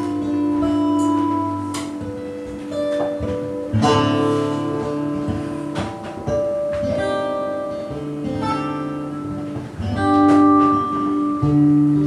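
Acoustic guitar played in an instrumental passage: picked single notes and chords that ring on, with fresh attacks every few seconds.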